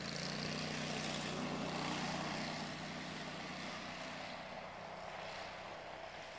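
An engine running with a steady low hum, loudest early on and slowly fading.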